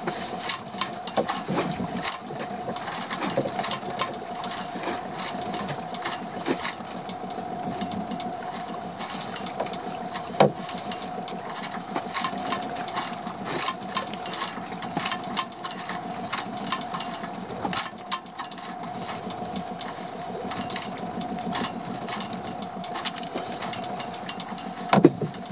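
A steady mechanical hum like a small motor runs under irregular clicks and rattles from a bass being handled and unhooked in a landing net, with a sharper knock about ten seconds in and a louder one near the end.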